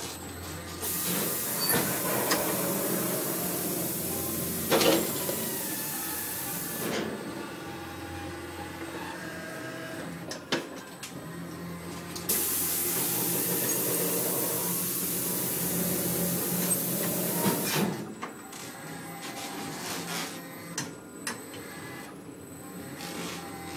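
Electric drive motors and gearboxes of a large radio-controlled model mining loader whirring as it drives and works its bucket, in two long runs of about six seconds each. Scattered clicks and knocks come between them, the loudest about five seconds in.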